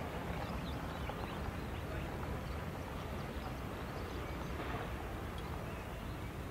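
Steady low outdoor rumble of open-air ambience, with faint short high chirps scattered through it.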